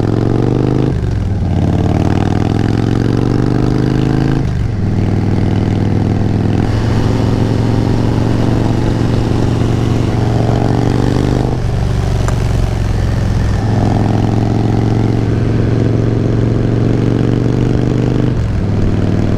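Motorcycle engine being ridden and accelerating through the gears. The engine note climbs and then drops back at each shift, about six times.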